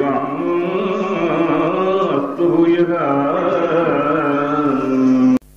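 Carnatic-style devotional singing: a voice holding long, wavering notes over a steady drone. It cuts off abruptly near the end, leaving a faint steady hum.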